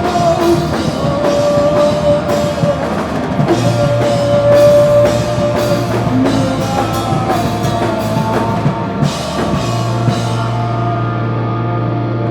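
Live rock band playing: a drum kit keeping a driving beat with cymbals over held guitar and bass notes. About ten seconds in, the drums and cymbals stop and the band rings out on a sustained low note, as at the end of a song.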